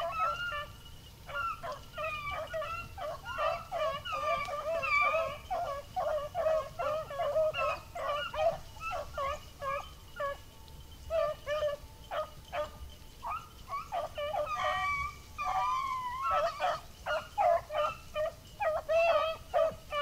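A pack of beagles baying, many voices overlapping and calling without a break, as the hounds run a rabbit's track.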